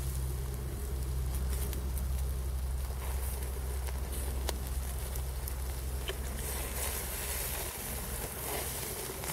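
Pork shashlik sizzling on skewers over a charcoal mangal, with scattered crackles from the hot coals. From about two-thirds of the way in, a louder hiss as non-alcoholic beer is splashed from a bottle onto the meat and coals to damp the very strong heat.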